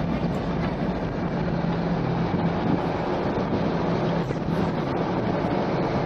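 Steady rumble and hiss of a car driving slowly in city traffic, heard from inside the cabin, with a low engine hum that eases off after about four seconds.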